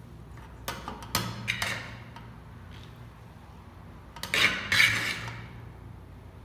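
Spatula scraping and knocking against the inside of a metal pot as layered biryani rice is mixed: a few short scrapes in the first two seconds, then a louder, longer scrape a little past four seconds in.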